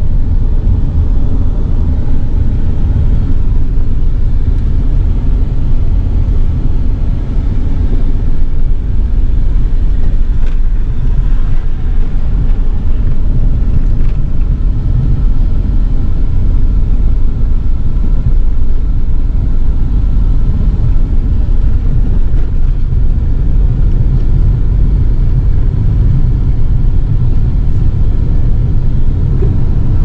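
Steady, loud low rumble of a car on the move, heard from inside: road noise and wind buffeting the microphone.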